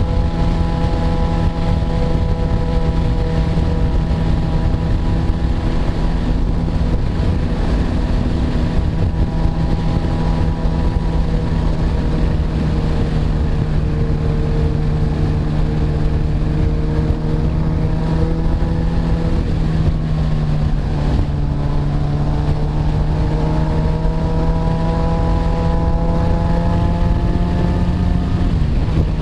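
Motorcycle engine running at a steady cruising speed, with wind rushing over the microphone. The engine pitch shifts about two-thirds of the way through and drops near the end.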